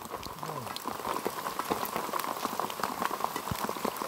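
Heavy rain falling on a tarpaulin shelter: a dense, irregular patter of drops over a steady hiss.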